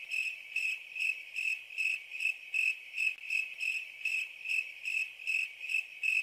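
Cricket chirping in a steady, evenly spaced rhythm of about two and a half high chirps a second.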